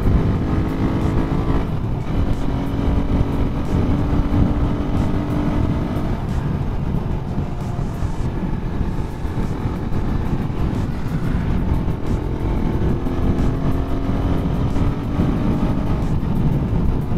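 Suzuki Raider 150 carburettor motorcycle's single-cylinder engine running under way at cruising speed, its note mostly steady with slight rises and falls, under a heavy low rush of wind and road noise.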